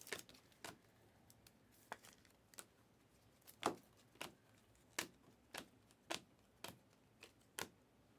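Panini Mosaic basketball trading cards being handled and set down one at a time: a run of light, sharp taps and flicks, about one every half second, some louder than others.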